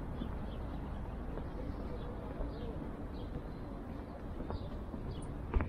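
Small birds chirping in short, high, downward-sliding notes every second or so over a steady low outdoor rumble. A single sharp knock comes near the end.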